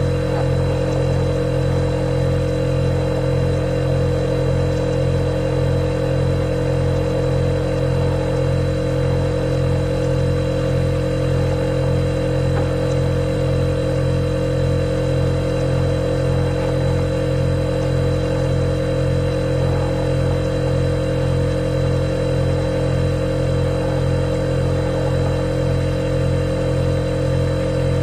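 Refrigerator running with a steady low hum carrying a faint, even throb, and a thin higher whine above it.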